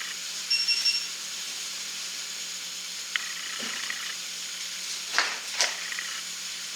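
Cardboard toy box being handled for unboxing: a few brief knocks and scrapes, the sharpest two a little after five seconds in, over a steady hiss.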